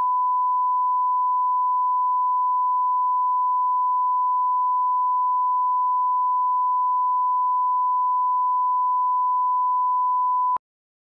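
Steady single-pitched 1 kHz line-up tone, the test tone that accompanies television colour bars. It cuts off suddenly near the end.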